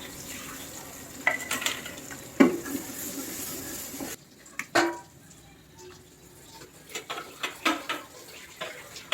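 A metal spoon or ladle clinking and scraping against a cooking pot as food is stirred. A steady hiss under the clinks for the first four seconds stops abruptly, and scattered clinks follow.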